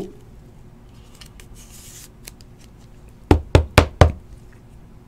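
Clear plastic card sleeve and hard plastic top loader being handled with faint light clicks. A little over three seconds in come four quick sharp knocks, about four a second, as the top loader holding the card is tapped down.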